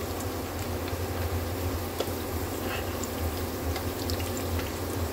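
Pakoras deep-frying in hot oil, a steady sizzle with scattered small crackles, over a low steady hum.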